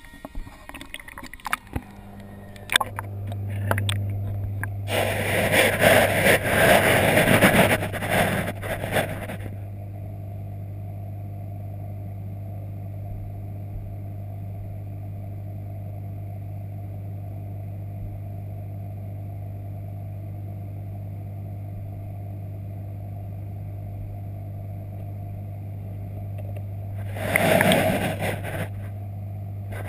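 Camera housing dipped into an aquarium: a few seconds of splashing and water noise, then a steady low hum from the tank equipment carried through the water. A shorter stretch of splashing comes near the end.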